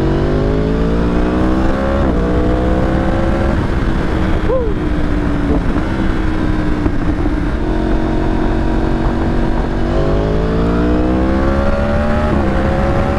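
2015 Yamaha R1's crossplane inline-four with a Yoshimura exhaust, pulling through the gears. The pitch climbs and drops sharply at an upshift about two seconds in, holds steady while cruising in the middle, then climbs again and drops at another upshift near the end. Heavy wind noise on the microphone underneath.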